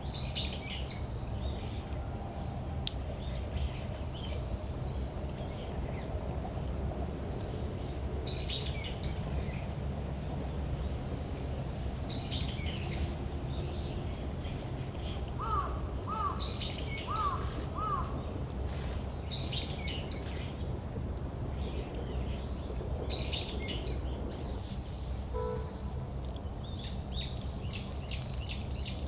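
Small forest birds calling: short, high call notes every few seconds, with a run of four lower, downward-slurred notes about halfway through. A steady high-pitched insect trill runs underneath.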